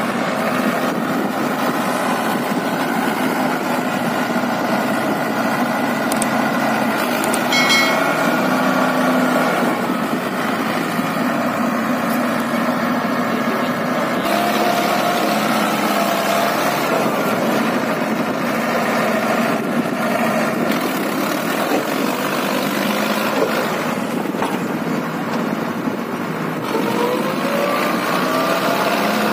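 Mahindra Arjun Ultra-1 555 DI tractor's four-cylinder diesel engine running steadily under load as the tractor, bogged in deep mud, strains to drive out.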